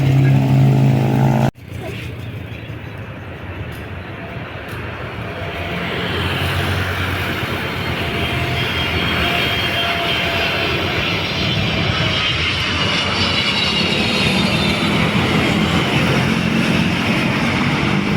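A loud, steady low engine hum that cuts off abruptly about a second and a half in, followed by jet airliner engine noise that builds over several seconds and stays loud, with a high whine running through it.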